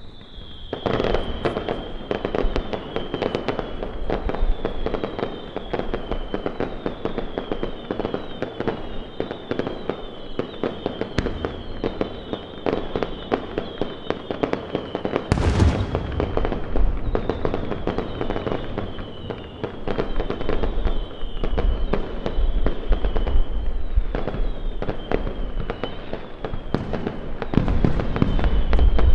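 Fireworks display: dense crackling pops overlaid by a steady stream of short, falling, high-pitched whistles. There is a heavy bang about halfway through, and the bangs grow heavier near the end.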